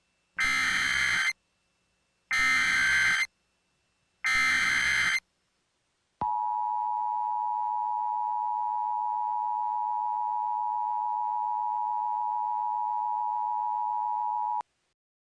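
Emergency Alert System header: three one-second bursts of screeching digital data tones, then the steady two-tone attention signal held for about eight seconds before it cuts off suddenly, announcing an emergency alert.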